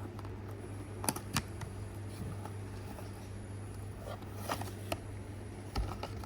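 Small cardboard toy box and its packaging being opened and handled: a few scattered clicks and rustles over a steady low hum.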